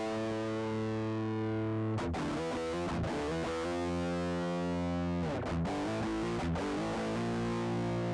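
Electric guitar played through the LY-ROCK BE-OD Deluxe distortion pedal: distorted chords left to ring, changing every second or two, with a few shorter struck chords near the end.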